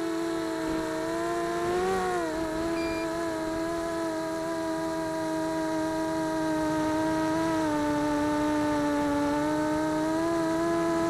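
Whine of a mini H quadcopter's Tiger MT1306 3100kv brushless motors spinning 5x3 two-blade props, heard from the camera mounted on the quad. The pitch goes up briefly about two seconds in and drops back, sags slightly past the middle, and climbs again near the end as the throttle changes.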